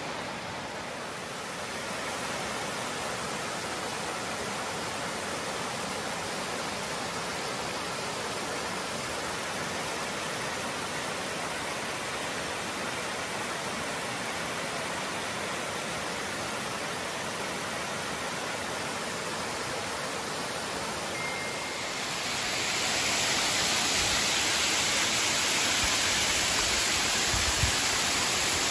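Creek water spilling over a low stone-and-mortar dam and splashing onto the rock below: a steady rushing hiss that turns louder and brighter about three-quarters of the way through.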